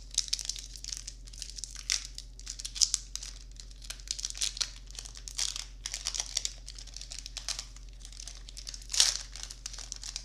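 Foil wrapper of a Magic: The Gathering booster pack crinkling and tearing as it is opened by hand: quick, irregular rustles throughout, with one louder crinkle about nine seconds in.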